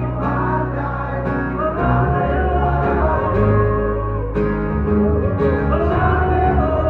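Live acoustic band music: two acoustic guitars and a bass guitar play under a man singing.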